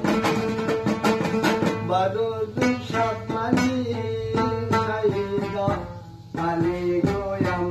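Long-necked pear-bodied lute of the dutar type, strummed in a fast, steady rhythm, with a short break about six seconds in.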